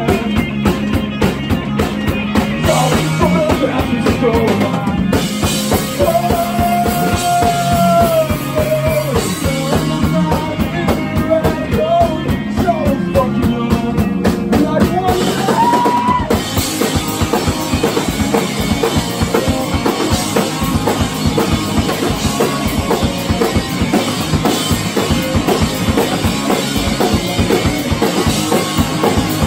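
A rock band playing live on electric guitars, bass and drum kit, with a driving, steady drumbeat. A melody line rises and falls over it through the first half, then the drums and guitars carry on without it.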